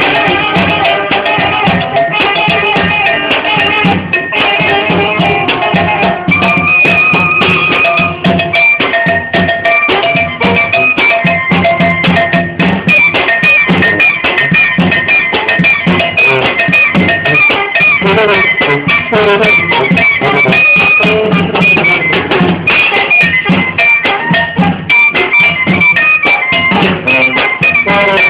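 A Mexican banda (brass and wind band) playing a son calenda: sousaphone bass under a wind-instrument melody, driven by a steady drum beat.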